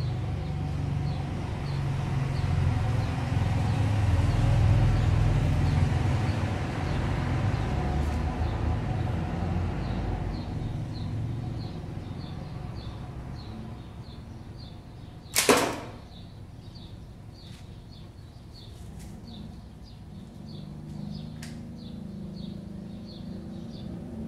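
Slingbow rifle firing an arrow: one sharp snap of the released bands and the arrow striking the target, about two-thirds of the way through. A low rumble fills the first half, and faint chirps come about twice a second later on.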